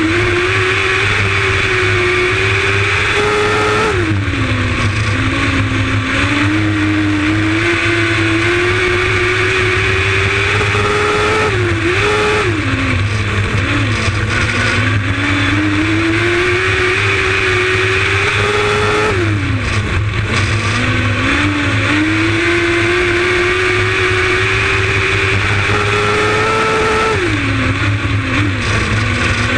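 Lightning Sprint race car's engine heard on board at speed on a dirt oval. The pitch climbs along each straight and drops sharply four times, about every seven to eight seconds, as the driver lifts for the turns, then rises again on the throttle.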